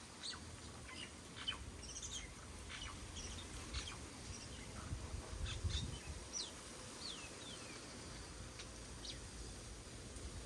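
Small birds chirping: scattered short high chirps and a few quick falling whistles, which die away near the end, over a low rumble.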